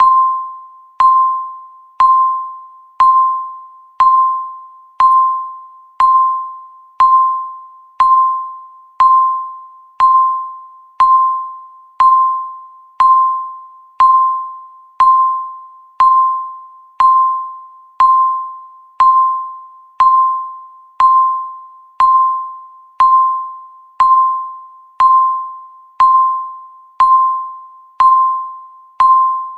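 Electronic countdown-timer beep repeating once a second: a single clear tone with a sharp start that fades out before the next one.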